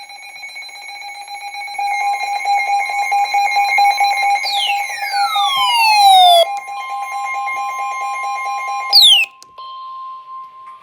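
Electronic alarm tones sounding together: a rapidly pulsing beep over several steady tones, growing louder, with a long falling sweep about halfway through and a short one near the end. The other tones then cut off, leaving a single steady tone alone for about a second before the alert message.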